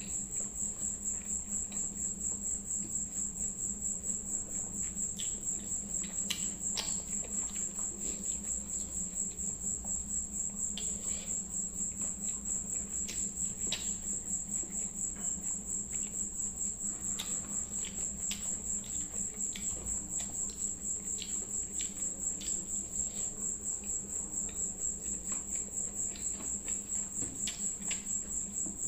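Steady high-pitched insect trill, pulsing rapidly and without a break, with a low hum beneath it. Faint scattered clicks and smacks from fingers mixing rice and from chewing.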